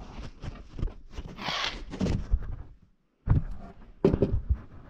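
Handling noises from fitting a sheet of sandpaper into a sander's paper clamp: a brief papery rustle about one and a half seconds in, and scattered knocks and clicks of the plastic clamp and sander body; the sander is not running.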